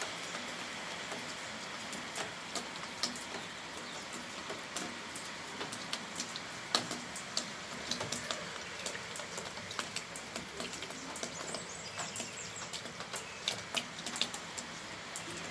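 Steady rain falling, an even hiss with many individual drops ticking sharply and irregularly close by.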